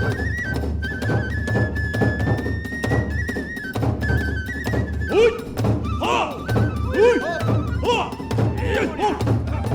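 Kagura hayashi accompaniment: a transverse bamboo flute plays a held, stepping melody over a steady beat on the large drum. From about halfway, shimmering hand-cymbal clashes join in.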